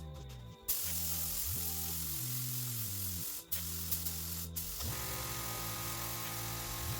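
Air spray gun fed by an air compressor, spraying in one continuous hiss that starts just under a second in and stops about five seconds in. Background music plays underneath.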